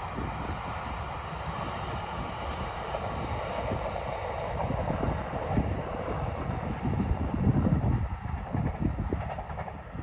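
Distant electric passenger train running along the line, a steady rail rumble. Irregular low buffeting from wind on the microphone grows louder in the second half.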